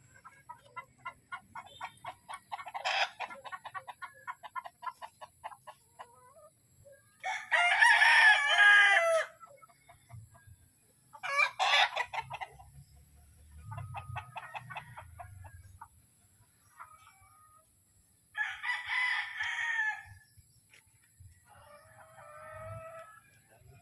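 Gamefowl roosters crowing, with two long crows about seven and eighteen seconds in and a shorter one between them. Runs of quick, repeated clucking fill the gaps.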